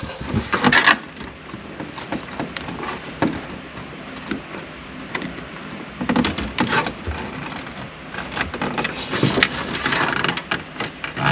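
Plastic dashboard trim and its retaining clips being handled and pushed into place: scattered clicks and knocks, the sharpest about a second in.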